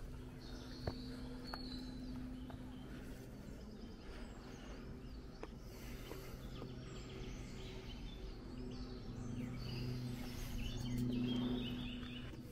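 Forest ambience: birds chirping in the trees, with a few footfalls on a dirt trail. Under it runs a low steady hum that grows louder near the end.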